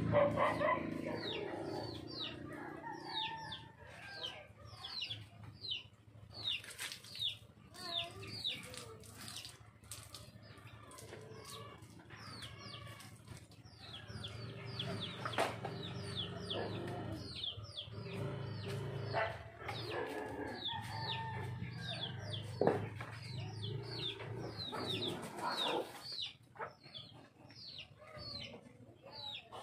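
Chickens clucking, with many short, high, falling chirps repeating throughout. A few sharp knocks and splashes from the motorcycle washing come through, the loudest a little past the middle.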